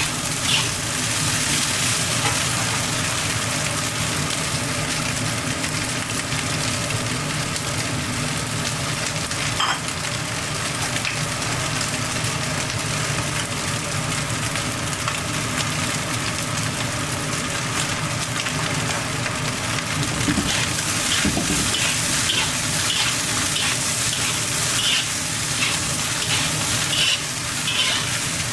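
Crab roe fried rice frying in a hot pan, a steady sizzle. In the last third it is being stirred, with short repeated scraping strokes.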